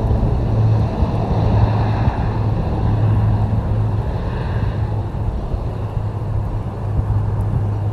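Twin Pratt & Whitney PT6A-60A turboprops of a Beechcraft King Air 350ER at takeoff power: a steady low propeller drone under a higher turbine whine, the whine fading about five seconds in as the aircraft runs away down the runway.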